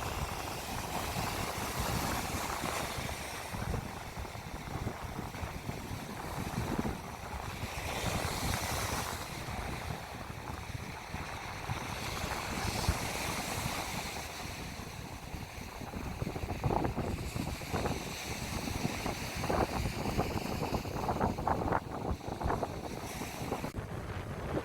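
Sea waves washing onto the beach in slow swells, with wind buffeting the microphone in a low rumble.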